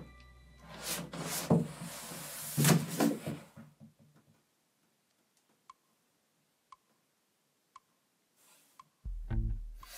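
Large cardboard box being opened from inside: the flaps are pushed up with a few seconds of loud scraping and rustling cardboard. Then it goes almost quiet, with faint ticks about once a second, and music with heavy low notes starts near the end.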